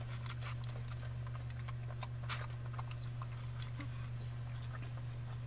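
A mother dog licking and nuzzling her newborn puppy, making scattered small wet clicks, with one sharper click a little over two seconds in, over a steady low hum.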